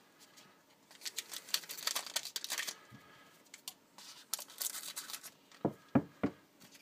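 A foil trading-card pack wrapper being torn open, crinkling in two spells, followed by three quick knocks near the end.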